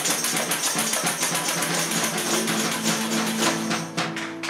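Small live band playing: a man singing over guitar, with a metal snare drum struck with sticks in a quick, steady rhythm and bright jingling percussion. The song winds down to a few last drum strokes near the end.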